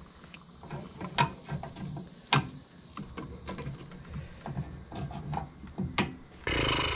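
Scattered clicks and taps of hard plastic as hands work a connection free on the fuel pump assembly, with a few sharper clicks standing out. A louder, drawn-out sound starts near the end.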